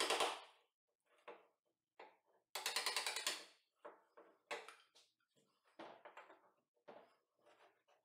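Bevel-edged chisel paring and scraping wood out of a hinge mortise in a door's edge, pushed by hand in a series of scraping strokes. The two longest strokes last about a second each, one at the start and one about three seconds in, followed by several shorter ones.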